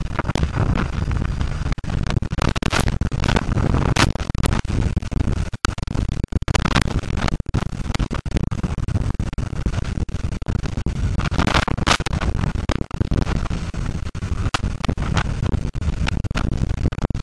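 Heavy wind rumble and buffeting on a helmet-mounted camera's microphone during a ride on a BMW S1000RR motorcycle, with the bike's engine running underneath. Many sharp crackles run through it.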